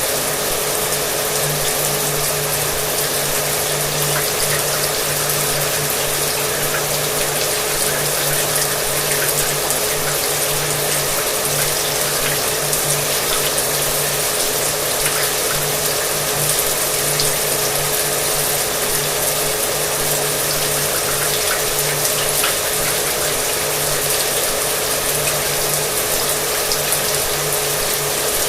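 Shower water running steadily, mixed with a hair dryer running in the background, its motor giving a constant hum under the hiss of the water.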